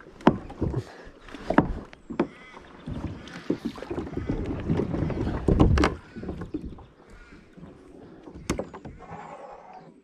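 Kayak paddle strokes through still, shallow water: blades dipping and splashing with trickling drips, and scattered sharp knocks and clicks. The splashing is heaviest and loudest in the middle stretch.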